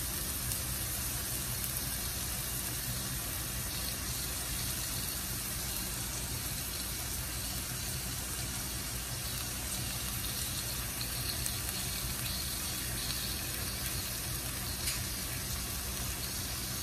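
Pork chops sizzling steadily on a hot stovetop griddle.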